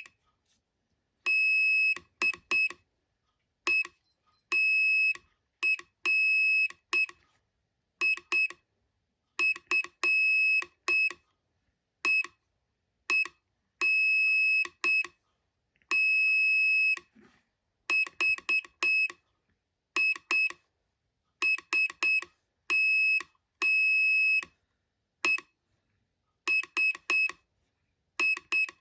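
Morse code sent by hand at slow speed: a single high steady beep keyed on and off in short dots and longer dashes, grouped into letters and words with longer silences between them.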